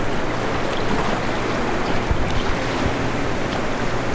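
Steady rushing noise of fast river current and wind on the microphone, with a couple of low thumps about two seconds in.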